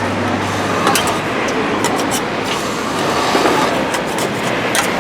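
Metal spatulas clicking and scraping on a rolled-ice-cream cold plate, with irregular sharp taps over a steady noisy background with a low hum.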